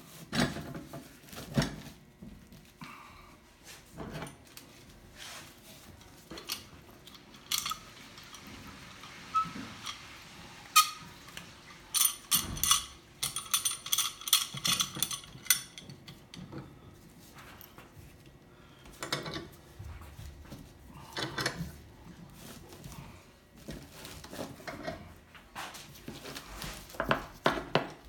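Steel C-clamps being set and screwed tight on a glued-up wood block: scattered metal knocks and clinks against the wood and bench, with a quick run of rapid clicking as a clamp screw is turned, about halfway through.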